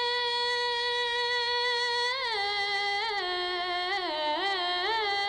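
Naat reciter's solo singing voice with no instruments. It holds one long steady note, then about two seconds in slides down into wavering melismatic turns that step lower.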